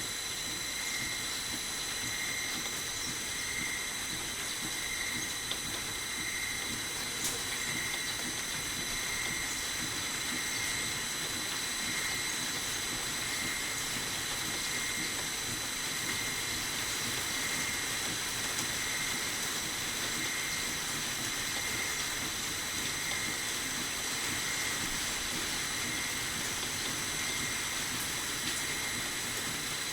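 Metal lathe running steadily: a high, evenly pulsing whine over a steady hiss, with a small tick about seven seconds in.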